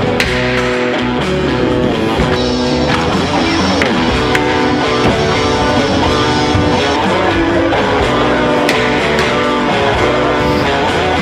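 Background rock music led by guitar, playing steadily.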